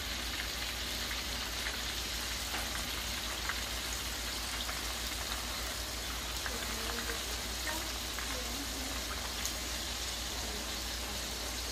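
Chicken pieces deep-frying in hot oil in a cast-iron pot: a steady, rain-like sizzle with scattered small crackles as more floured pieces go into the oil.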